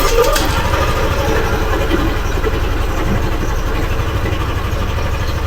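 Yamaha NMAX V2 scooter's single-cylinder four-stroke engine idling steadily with a fast, even low pulse, freshly filled with new oil.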